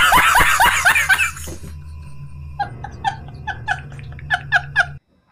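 A man laughing hard. It starts as a loud burst of rapid laughs, then after a short lull turns into a run of high-pitched laughs about three or four a second, and cuts off suddenly near the end.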